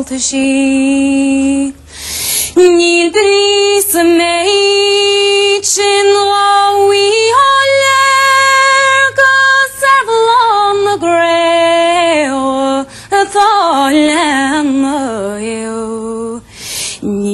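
A woman singing unaccompanied in the sean-nós style, a slow Irish-language melody with long held notes decorated by quick ornamental turns. She breaks briefly for a breath about two seconds in and again near the end.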